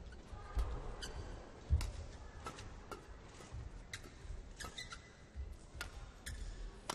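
Badminton rally: repeated sharp racket strikes on the shuttlecock, mixed with short squeaks of court shoes on the floor and low thuds of footwork.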